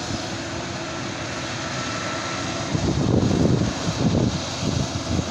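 Claas Jaguar 820 forage harvester running steadily as it chops maize. Irregular low rumbles join in from about three seconds in.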